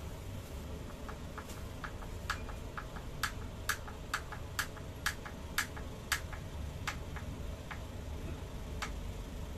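Hand screwdriver driving a screw through a metal L-bracket into a wooden board: a run of sharp clicks, about two a second. The clicks start faint about a second in, are loudest in the middle, and thin out near the end.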